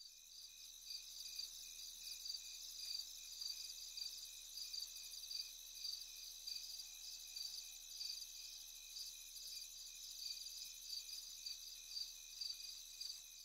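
Faint crickets chirping in a steady, even pulse over a constant high-pitched ringing.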